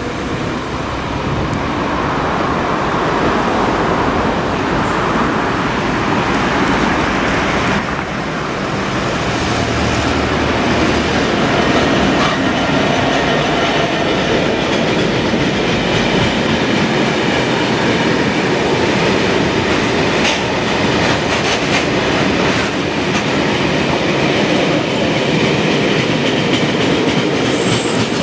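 Class 66 diesel-electric freight locomotive, with its two-stroke V12 engine, passing close by at the head of a loaded gypsum train. The box wagons then roll past, wheels clattering steadily over the rail joints.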